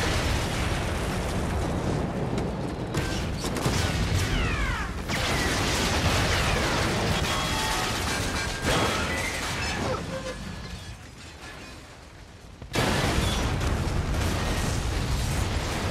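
Dense war-film battle sound of a battleship under air attack: anti-aircraft gunfire and explosions with crashing debris. It eases off for a couple of seconds past the middle, then comes back loud all at once near the end.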